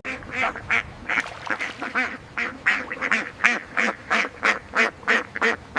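An animal giving a fast run of short, repeated calls, about three or four a second.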